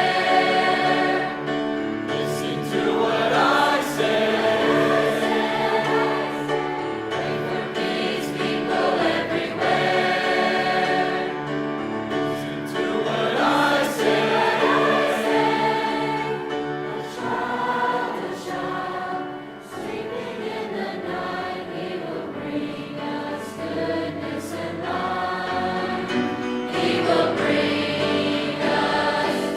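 High school choir singing a Christmas song in several-part harmony, dropping softer about two-thirds of the way through and then building again.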